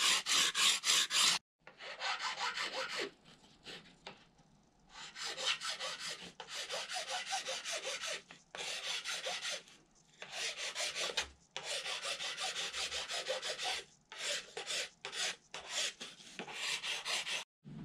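Rasping strokes of a Permagrit abrasive file on the edge of a thin phenolic wing template, taking it down to the marked line. Quick back-and-forth strokes come in runs of a second or two, with short pauses between runs.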